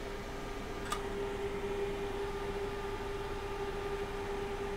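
Steady background hum with one constant mid-pitched tone over a soft hiss, and a single faint click about a second in.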